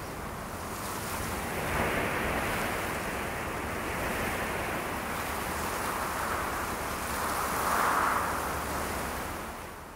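A steady rushing noise, like surf or wind, that swells about two seconds in and again about eight seconds in, then fades out at the end.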